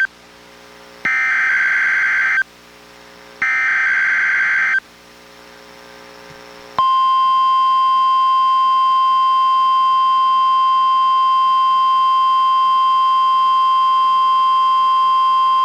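NOAA Weather Radio SAME alert header: two short bursts of warbling digital data tones about a second apart. After a two-second gap comes the steady 1050 Hz warning alarm tone, held for about nine seconds, as sent for the Required Weekly Test of the radio's warning alarm.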